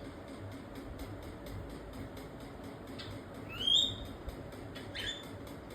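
Cockatiel calling twice in the second half: a loud, short rising chirp about three and a half seconds in, then a briefer falling chirp about a second later, over faint steady background noise.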